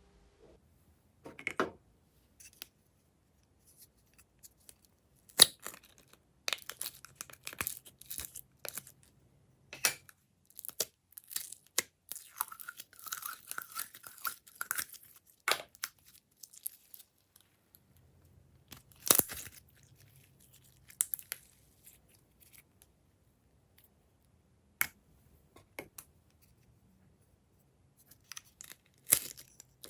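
Glossy slime being squished, stretched and pulled apart by hand, giving scattered sticky pops and crackles. A longer run of continuous crackling comes a little before the middle.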